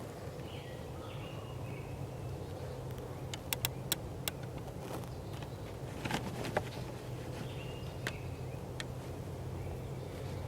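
Outdoor field ambience: a steady low hum with faint bird calls, a few sharp clicks around the middle, and a brief rustle about six seconds in.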